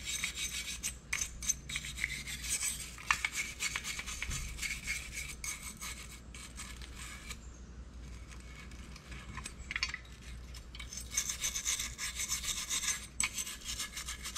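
Small hand wire brush scrubbing surface rust off a rusty steel bracket in quick back-and-forth strokes, a dry scratchy rasp. It goes in two bouts, with a lighter stretch a little past halfway.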